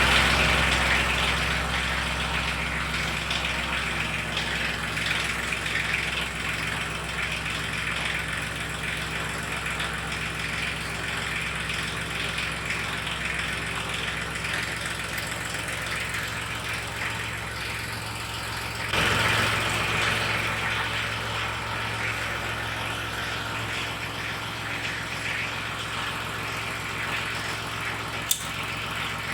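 Crown CT 36036 12 V, 250 W mini air compressor starting abruptly and running steadily, with a brief rise in loudness about two-thirds of the way through and a short click near the end.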